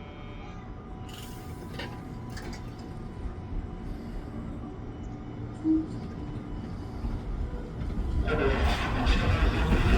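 Fujikyu 6000-series electric train on the move after its doors close, its running noise growing from about seven seconds in and loud near the end as it comes closer.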